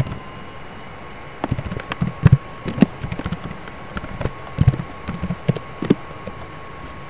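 Typing on a computer keyboard: a run of irregular keystrokes that starts about a second and a half in and stops about a second before the end.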